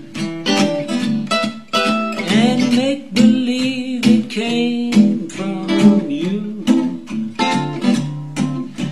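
1947 Epiphone Blackstone acoustic archtop guitar, carved spruce top and laminated maple back, strummed in a steady rhythm of full chords.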